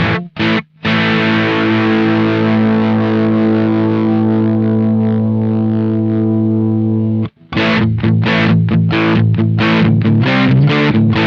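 Electric guitar through a Velouria FX Witchcraft distortion pedal: two quick chopped chords, then a heavily distorted chord left to ring and slowly fade for about six seconds. It is cut off sharply, and a fast rhythmic riff of short, chopped notes follows.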